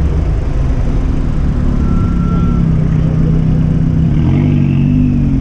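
A car engine running steadily with a low drone, its pitch shifting slightly about four seconds in.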